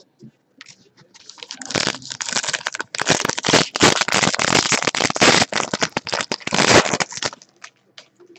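A 2012 Elite Football trading-card pack's foil wrapper being torn open and crinkled close to the microphone: a dense, loud crackling that starts about a second in and stops about seven seconds in.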